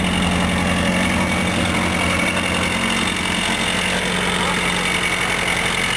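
Isuzu Bellett GT type R's 1.6-litre DOHC four-cylinder engine idling steadily with an even, fast pulse.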